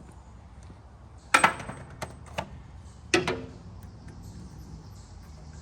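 Metal hand tools and parts clanking: two loud clanks a little over a second in, two lighter clinks, then another clank with a short ring about three seconds in.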